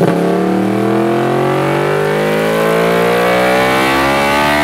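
Yamaha R1's crossplane inline-four engine revving through an Arrow exhaust, its pitch climbing steadily as the revs rise.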